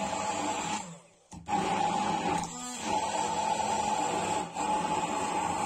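Electric immersion (stick) blender running in a plastic beaker, puréeing a thick yogurt and cheese sauce, with a steady motor whine. It stops about a second in and starts again half a second later.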